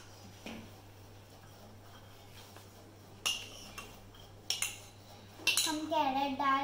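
Kitchen utensils clinking against dishes: a few sharp, separate clinks a second or more apart. A high-pitched voice starts near the end.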